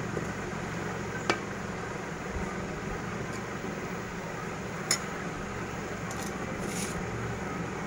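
Metal ladle spreading par-boiled basmati rice in an aluminium pot, with two sharp clinks of the ladle against the pot, the second louder, and a couple of faint scrapes near the end. A steady low hum runs underneath.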